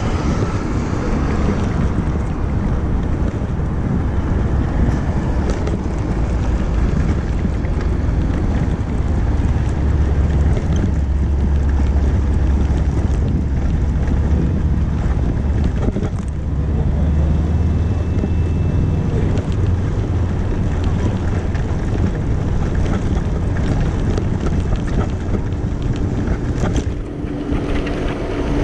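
Wind buffeting the microphone of a camera on a moving electric wheelchair bike attachment, a steady low rumble with road noise from the ride.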